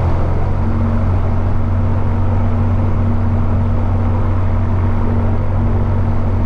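Robin DR400's four-cylinder piston engine and propeller running at low power while the plane taxis, heard from inside the cockpit as a loud, steady low hum. A steadier, higher tone joins about half a second in.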